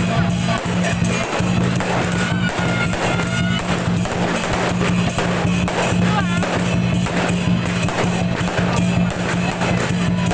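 Music with drumming and jingling, cymbal-like percussion keeping a steady beat, with a few short whistling glides.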